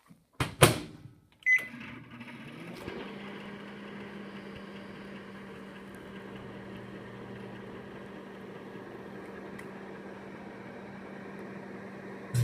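Microwave oven door shut with a loud click, a short keypad beep, then the oven starting up and running with a steady hum.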